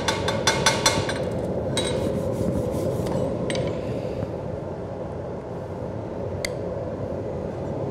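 Chipping hammer striking a fresh weld bead on cast iron in a quick, even run of about five blows a second, knocking off slag and peening the weld to relieve its stresses. The run stops about a second in, a few lighter taps follow near two seconds, then a couple of single clicks over a steady hum.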